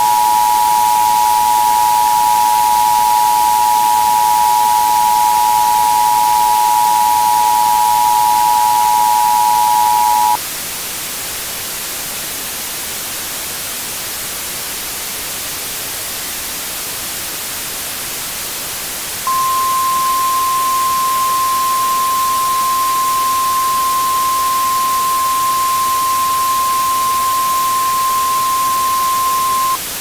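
Emergency Alert System attention signal: a two-tone alarm held steady for about ten seconds, then cutting off. After several seconds of only static hiss, a single steady warning tone of the kind used by the National Weather Service sounds for about ten more seconds, with TV-style static hiss underneath throughout.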